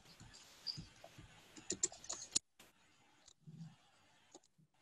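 Computer keyboard typing and mouse clicks: a quick run of keystrokes over the first two seconds or so, then a few fainter scattered clicks.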